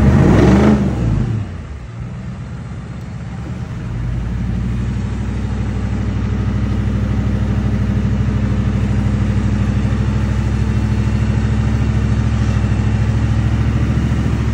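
OBS Ford service truck's engine: a brief rev that falls away at the start, then the engine running at a steady speed, getting louder about four seconds in and holding there while the truck winches itself through the mud.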